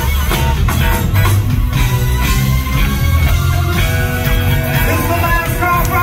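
Live funk band playing loud through a concert PA, heard from the audience: a heavy bass line and steady beat with guitar.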